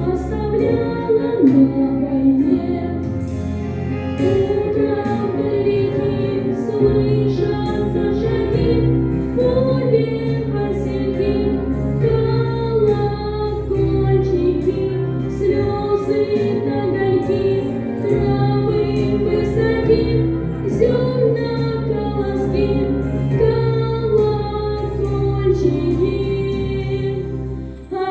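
A high solo voice singing a song over instrumental accompaniment with a steady bass line.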